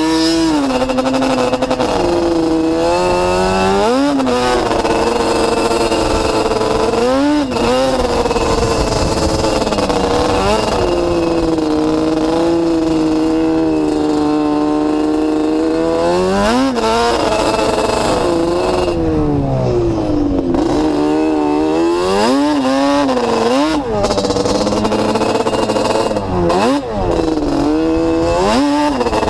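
Sport quad ATV engine under way, its revs climbing and dropping again and again. The revs hold fairly steady for several seconds in the middle, sink about two-thirds of the way through, then climb and drop in quick succession near the end.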